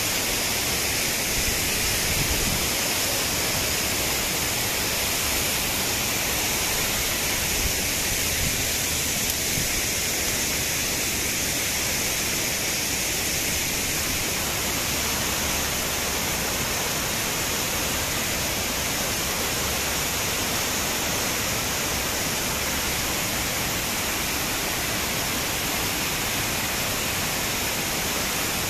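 Waterfall's steady rush of falling water, an even hiss that holds without change.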